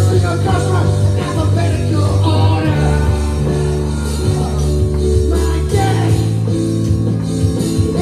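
Rock band playing live: electric bass holding low notes under a drum kit and keyboards, with a man singing.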